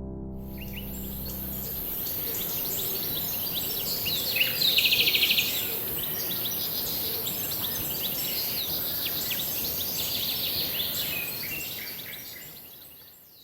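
Small songbirds chirping and calling over a steady high hiss, with one loud rapid trill about five seconds in; the whole fades out near the end.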